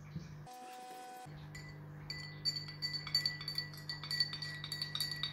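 Metal teaspoon stirring in a drinking glass, clinking rapidly and repeatedly against the glass wall, which rings after each tap, while dissolving buffer powder in water. The clinking starts about two seconds in.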